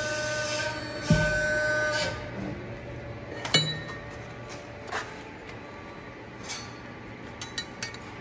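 Bend/Force 8 ft 145-ton CNC press brake running through a bend: a steady hydraulic hum and whine, a heavy thump about a second in, and the whine stopping about two seconds in. Then a few sharp metal clinks as the bent steel part is lifted off the die and handled.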